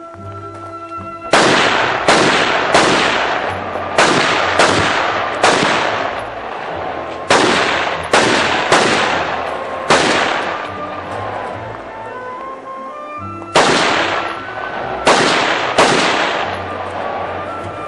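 Semi-automatic rifle firing about thirteen shots in quick pairs and triplets with short pauses between groups, each shot trailing off in echo. Background music plays underneath.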